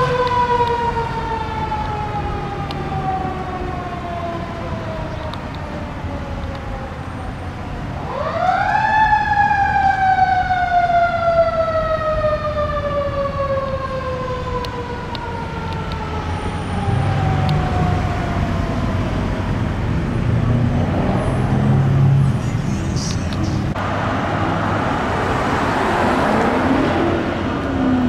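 Fire engine siren falling slowly in pitch, then about eight seconds in winding up quickly and coasting down slowly again over about ten seconds, the wind-up and coast-down of a mechanical siren. After it dies away, the low rumble of vehicle engines in traffic, and a steady hiss near the end.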